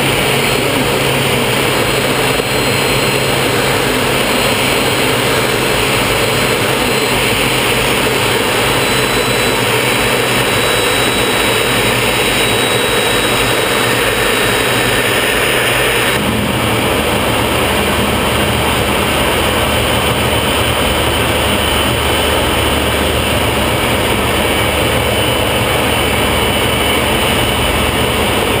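Folland Gnat's single Bristol Siddeley Orpheus turbojet and rushing airflow, heard from inside the cockpit in flight as a loud, steady noise. Its tone shifts abruptly about halfway through.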